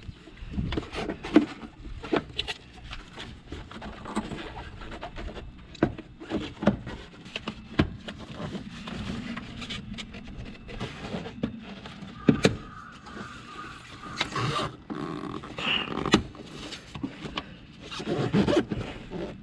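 Plastic air-filter box lid being fitted back on and its clips snapped shut, with irregular clicks, knocks and scraping.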